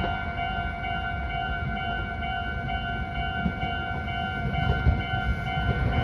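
Japanese level-crossing alarm ringing its steady electronic warning tone, pulsing about twice a second, over the low rumble of an approaching Meitetsu electric train that grows louder near the end.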